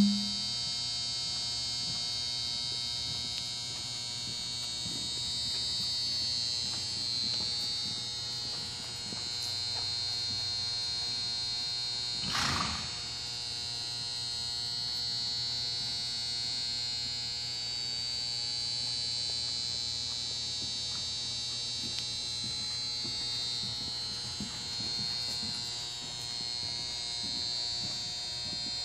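Steady high-pitched electrical buzz and hiss with a faint hum beneath it, and one brief louder noise about twelve seconds in.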